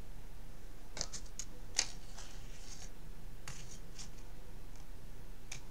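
Trading cards being handled at a table: about a dozen short, high-pitched scrapes and clicks of card stock sliding against card stock and plastic.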